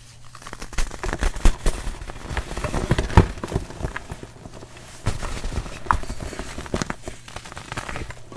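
Dried baking soda being crushed close to the microphone: dense, irregular crunching and crackling.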